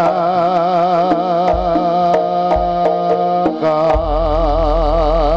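Jaranan gamelan music: a melody line held on long notes with a wide, wavering vibrato, over separate hand-drum (kendang) strokes. A deep low tone comes in about four seconds in.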